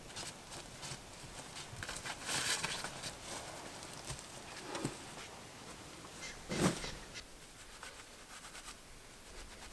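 Footsteps and rustling on dry leaf litter and twigs, with a few knocks and a louder thump about two-thirds of the way through, then light scratching and clicking as small sticks are handled at a fire ring.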